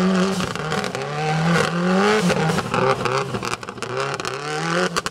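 Subaru Impreza rally car's turbocharged flat-four engine revving hard, its pitch climbing and dropping several times as it shifts through the gears, over the hiss of tyres on loose dirt.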